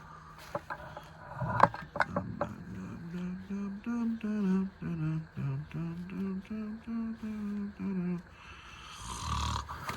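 A man humming a tune under his breath in short gliding notes, with a few sharp clicks of handling early on and a brief rustle near the end.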